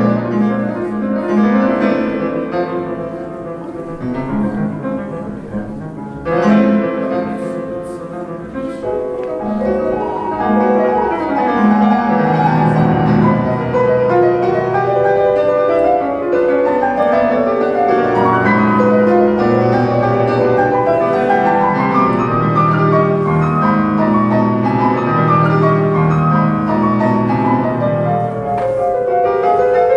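Classical piano music played back from a reel-to-reel tape over hi-fi loudspeakers. It is softer in the first few seconds and grows fuller about ten seconds in.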